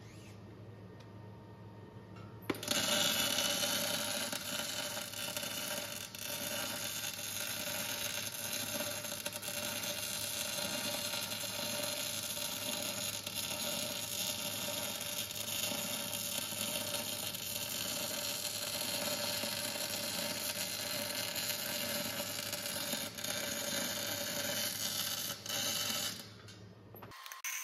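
MIG welding arc crackling and hissing steadily as a weld is run on a steel ring. It starts abruptly about two and a half seconds in and cuts off shortly before the end.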